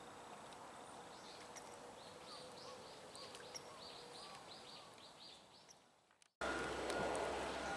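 Outdoor ambience with a small bird giving a quick series of short chirps, about four or five a second, from about two to five seconds in. The ambience fades out, and after a sudden cut near the end a louder steady background hum comes in.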